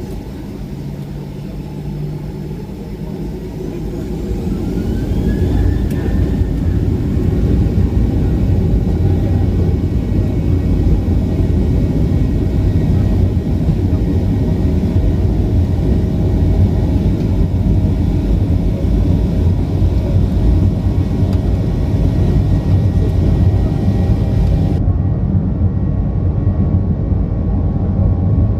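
The CFM56-7B engines of a Boeing 737-800 spooling up, heard inside the cabin: a whine rises about three to five seconds in as the sound grows much louder, then the engines run steadily and loudly at high thrust, as on the takeoff roll.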